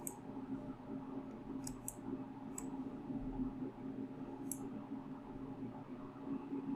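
Faint computer mouse clicks, about five of them, including a quick pair about two seconds in, over a low steady hum.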